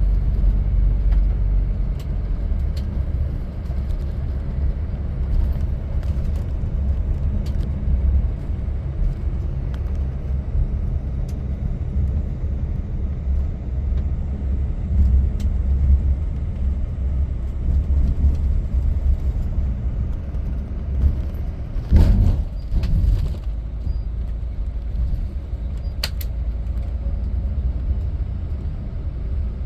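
Bus running, heard from inside the cabin: a steady low engine and road rumble. There is a louder thump about two-thirds of the way through and a sharp click a few seconds later.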